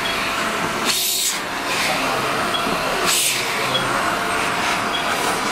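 Electric hair clippers running steadily as they shave the fur on a cat's hind leg. The cutting noise swells briefly about a second in and again about three seconds in.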